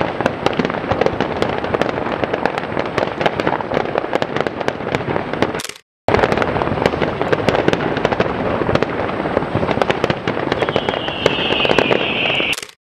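Fireworks display with a dense, continuous crackle of many sharp cracks and pops. The sound drops out completely for a moment about halfway, and a high-pitched steady sound joins about two seconds before the end.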